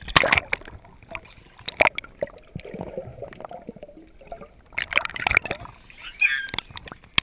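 Seawater splashing against a handheld camera as it plunges under the surface, then muffled underwater gurgling and bubbling, with more sharp splashes about five seconds in as it breaks the surface.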